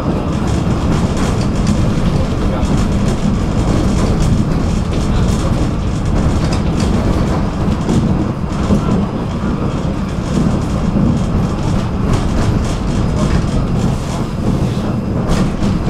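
Tram running along the track: a steady low rumble of wheels on rails, with scattered short clicks that grow more frequent near the end.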